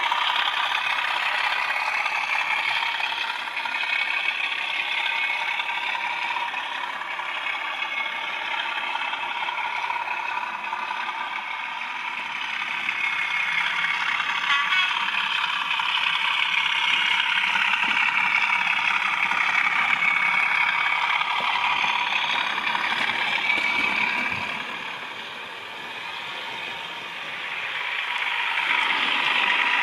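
Sound-fitted OO-gauge Bachmann Class 37 model diesel locomotive running, its digital sound decoder playing a Class 37 diesel engine sound through the model's small speaker, thin and lacking bass, with the wheels rattling on the track. The sound drops away for a couple of seconds near the end, then comes back up.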